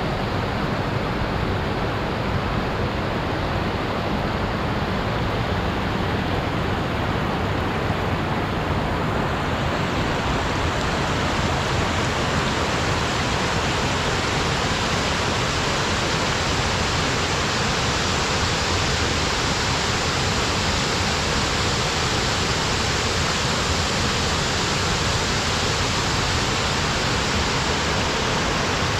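Waterfall rushing steadily, a dense even roar of falling water; about ten seconds in it turns brighter and hissier.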